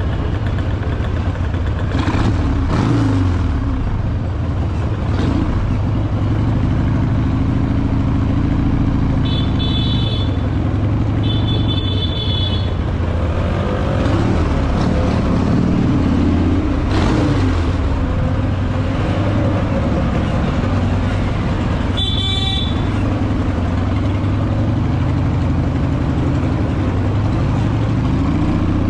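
Several motorcycle engines running and revving, with a high-pitched horn tooting three times: two short toots close together near the middle and one more later on.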